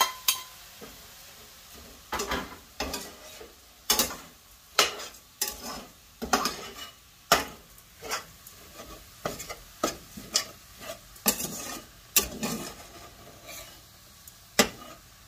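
Slotted metal spatula stirring dry roasted oats into scrambled egg in a stainless steel sauté pan, scraping and clacking against the pan irregularly, about one or two knocks a second.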